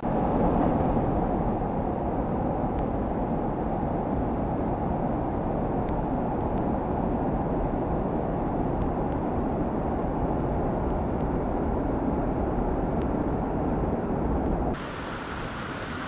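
Mountain stream water rushing steadily. Near the end it switches abruptly to a quieter, thinner-sounding flow.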